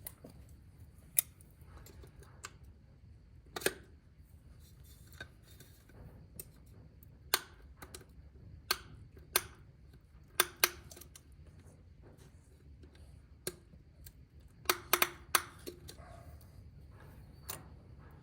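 Scattered sharp metallic clicks and clinks, irregular with a quick cluster about fifteen seconds in, of hand tools working at a stuck spin-on oil filter.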